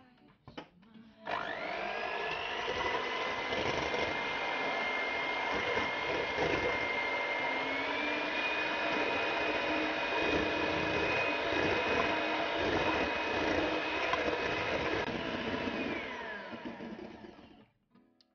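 Electric hand mixer running, its beaters whisking egg whites to a foam in a stainless steel bowl. The motor whine climbs as it spins up about a second in, steps up slightly midway, then winds down and stops near the end.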